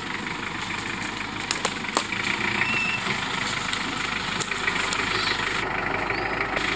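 Mitsubishi Pajero engine running at low revs as the 4x4 crawls over rocks, with a few sharp knocks, a cluster about one and a half to two seconds in and another near four and a half seconds.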